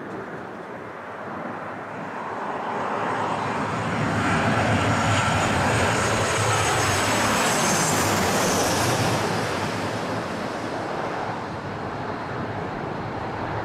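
Boeing 737's twin CFM56 turbofans at approach power as the airliner passes low overhead on final approach, gear down. The jet noise grows to a peak about a third of the way in. Near the middle a high engine whine slides down in pitch as the plane goes over, then the sound slowly fades.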